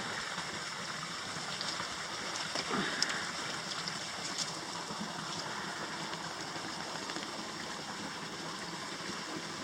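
Small stream running over stones, a steady babbling rush, with a brief falling sound and a click about three seconds in.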